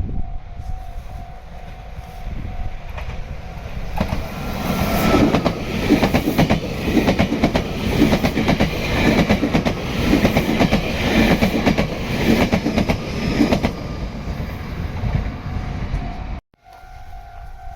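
Meitetsu electric train passing, its wheels clattering in a quick, even rhythm over the rail joints for about ten seconds, with a level-crossing alarm ringing a steady tone underneath. The sound cuts off suddenly near the end and the crossing alarm is heard again on its own.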